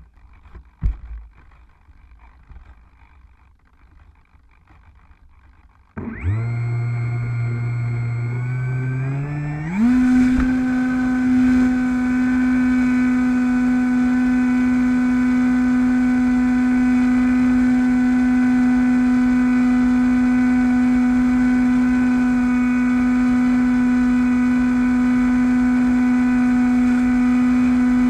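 A few knocks in the first quiet seconds. Then the electric motor and propeller of a Bixler v1.1 foam plane start about six seconds in and rise in pitch in steps. Near ten seconds the throttle goes to full, and the motor holds a steady high whine as the plane climbs.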